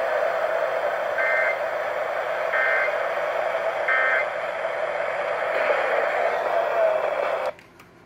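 Eton hand-crank emergency radio tuned to an FM station, playing a steady broadcast hiss with three short two-tone data chirps about 1.4 seconds apart, the pattern of an Emergency Alert System header sent three times. The radio sound cuts off suddenly near the end.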